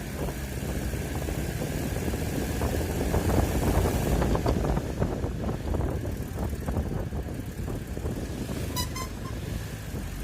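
Steady road noise of a moving vehicle: engine and tyre rumble with wind. About nine seconds in come two short, quick beeps.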